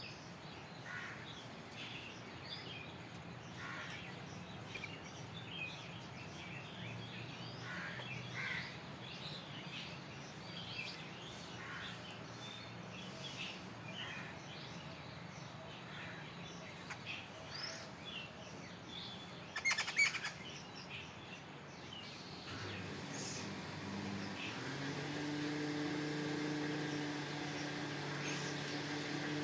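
Birds chirping in many short, scattered calls. About two-thirds of the way through there is a brief loud rustle, and after that a steady low hum comes in under the calls.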